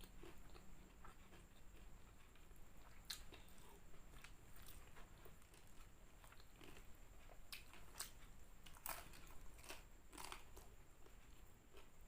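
A person chewing crispy fried chicken, with soft, irregular crunches of the coating; the most distinct crunches come about three seconds in and between eight and ten seconds in.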